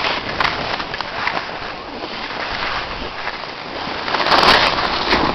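Wind rushing over the microphone together with the hiss and scrape of sliding downhill on packed snow, an even noise that swells about four seconds in.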